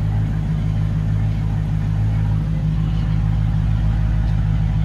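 2020 Dodge Challenger Scat Pack's 6.4-litre (392) Hemi V8 idling steadily with a deep, even rumble.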